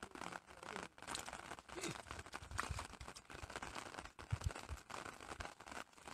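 Faint crinkling and crackling of a thin plastic carrier bag being handled, with a few dull low thumps about two and a half and four and a half seconds in.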